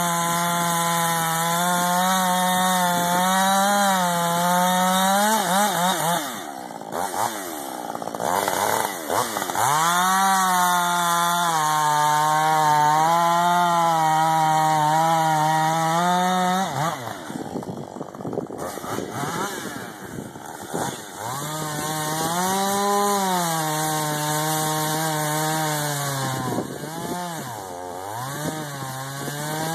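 Husqvarna 562XP two-stroke chainsaw running at full throttle, cutting into dead ash wood. It is held at high revs in three long spells, each a few seconds, and the revs drop between them.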